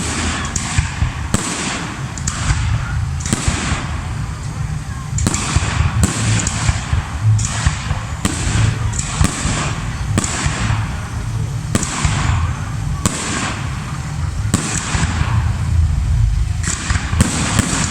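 Fireworks display: a bang about every second, each followed by a fading crackling hiss, over a steady low rumble.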